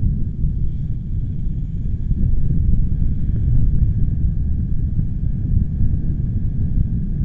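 Gusting wind buffeting the microphone: a loud, continuous low rumble that swells a little in the middle.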